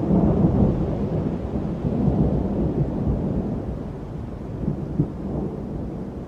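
Thunder rolling: a low rumble that is loudest in the first second, swells again about two seconds in, then slowly dies away, with a short sharper crack about five seconds in.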